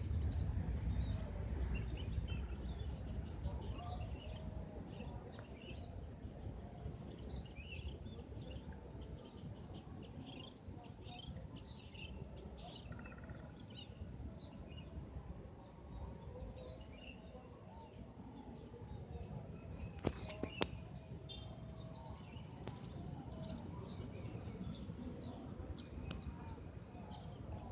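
Outdoor ambience of birds chirping over a low rumble that fades during the first few seconds. Two sharp clicks come about twenty seconds in.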